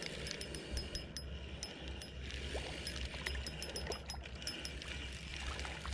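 Spinning reel being cranked to bring in a small hooked fish, its gears ticking rapidly and unevenly.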